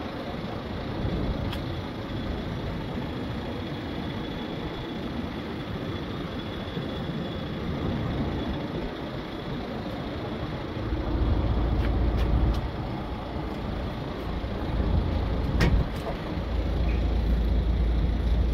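Steady heavy-vehicle engine noise, with a deeper low rumble swelling twice in the second half and a few sharp clicks.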